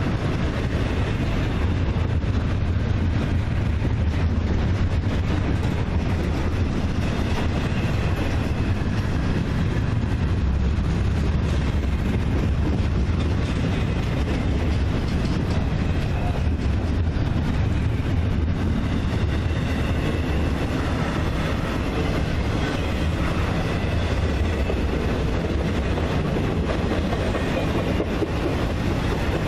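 Intermodal freight cars, double-stack container well cars and then trailer-on-flatcar cars, rolling past. Their steel wheels run on the rails in a steady, low-pitched rumble.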